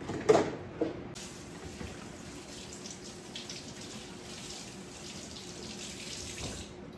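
Kitchen sink faucet running water while dishes are washed by hand, after two short knocks of dishes near the start. The water shuts off shortly before the end.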